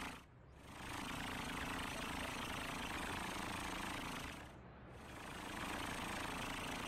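Cartoon truck engine sound effect running steadily, dipping briefly twice, about a third of a second in and again around four and a half seconds in.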